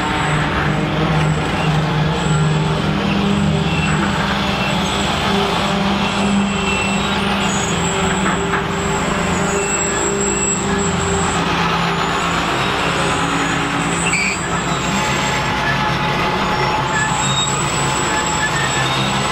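Intermodal freight train's container and trailer cars rolling past: a loud, steady rumble and clatter of steel wheels on rail, with a thin high whine over it.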